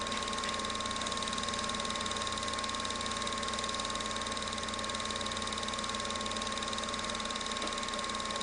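Home movie film projector running: a steady mechanical whir with a constant hum and a high, even tone, unchanging throughout.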